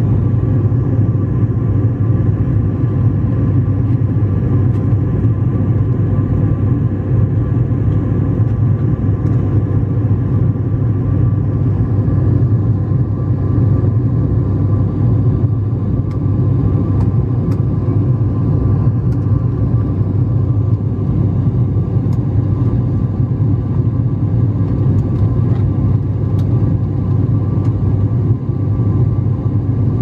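Steady cabin noise of an airliner in flight: a loud, even low rumble of engines and rushing air heard through the fuselage, with a faint steady hum above it.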